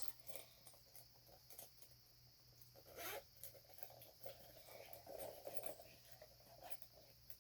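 Faint rustling and handling as small fidget toys are stuffed into a fabric burger-shaped purse, with scattered soft clicks and a short rasp about three seconds in.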